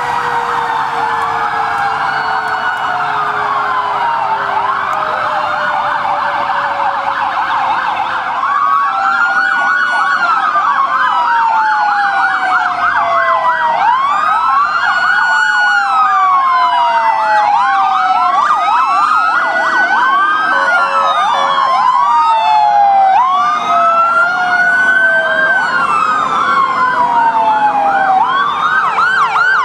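Several fire apparatus sirens sounding at once: slow rising and falling wails overlap with fast repeating yelps. The sirens get louder about a third of the way in as the trucks come closer.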